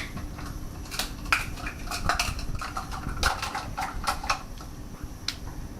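A utensil scraping and clinking against a pan as sugar is stirred in it, a quick run of knocks and scrapes through the middle.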